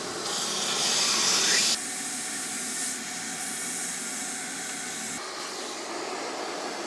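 Shop vacuum running steadily, sucking leftover coolant and water out of a snowmobile's cooling hoses through a length of fuel line jammed into them. The hiss is louder for the first second and a half or so, then settles to an even rush.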